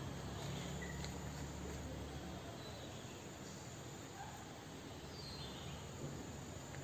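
Faint, steady outdoor background sound: an even hiss over a low hum, with no distinct events.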